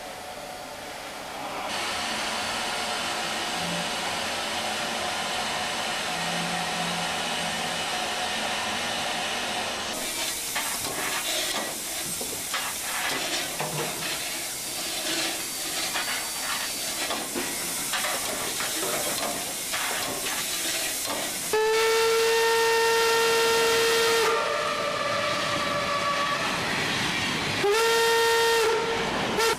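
Class 52 steam locomotive 52 8139 blowing off steam with a steady hiss, followed by a stretch of irregular knocks and hissing. A loud train signal then sounds twice, blasts of about three and two seconds, with a quieter tone of a different pitch between them.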